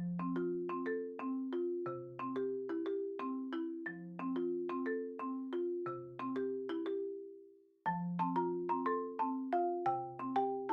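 Background music: a light tune of struck mallet-instrument notes like a marimba, about three notes a second over a low bass line. The phrase stops just before eight seconds in and starts over at once.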